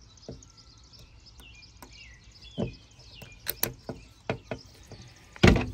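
Small birds chirping faintly in the background, with a few light clicks from a piston ring being worked onto an aluminium piston by hand, and a louder knock near the end.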